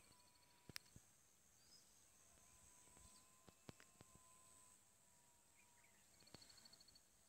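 Near silence: faint rural outdoor ambience with a few soft clicks and a faint, rapid high chirping near the start and again near the end.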